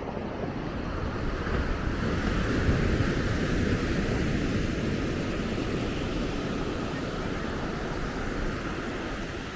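Sea surf washing onto a sandy beach: one long swell of wave noise that builds over the first few seconds and slowly eases off, with wind rumbling on the microphone.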